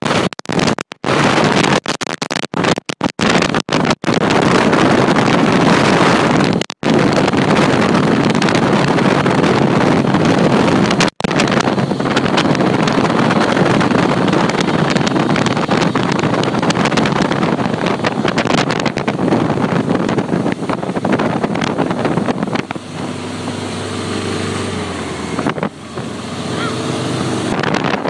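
Wellcraft Excalibur powerboat running at speed: wind buffeting the microphone over the rush of water and engine noise. The sound drops out for an instant several times in the first few seconds and twice more, and near the end the wind eases so the engine's steady hum comes through.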